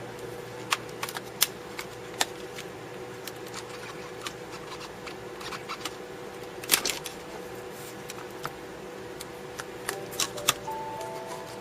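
Small sharp clicks and taps of tools and fingers on a Samsung Galaxy S phone's plastic and metal parts during disassembly, scattered and irregular, over a steady electrical hum.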